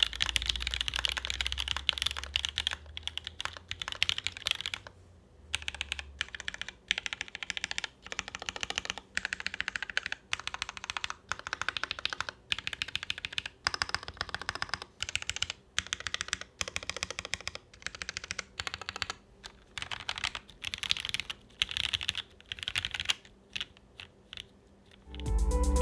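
Rukia R1 custom mechanical keyboard with lubed SP Star Meteor White switches on a top-mount UHMWPE plate and GMK keycaps being typed on in quick runs of keystrokes with short pauses, a clacky sound. Music starts just before the end.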